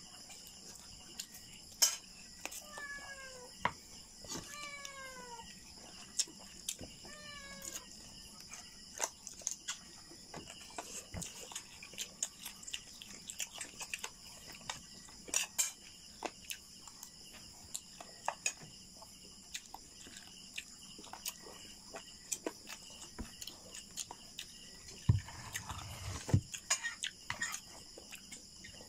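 A domestic cat meows three times near the start, each meow falling in pitch, the last one short. Scattered sharp clicks and taps of a spoon on a plate and eating sounds run throughout. Underneath is a steady high-pitched chirring of insects.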